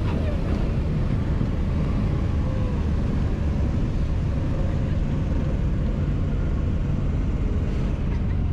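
Propeller engines of a small twin-engine plane running steadily, heard from inside the cabin as it rolls along the runway after touchdown, a constant low drone.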